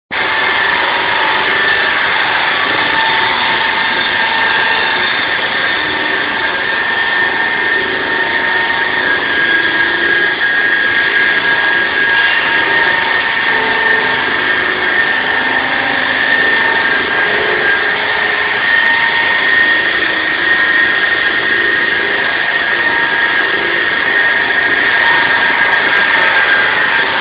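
SAW160 concrete saw running steadily, a loud machine noise with a steady high-pitched whine.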